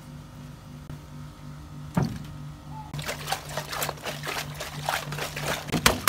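Background music with a low steady beat; about two seconds in a single sharp tap, then from about three seconds a quick run of crackles and rubbing noises from a hand pressing and rubbing the taut skin of an inflated clear plastic toy.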